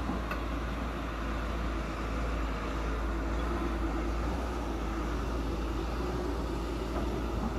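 Caterpillar 320D2 excavator's diesel engine running steadily, a continuous low rumble.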